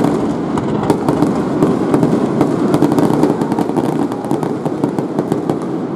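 Finale barrage of aerial firework shells: many bursts overlapping into a continuous rumble, with sharp cracks and crackling all through.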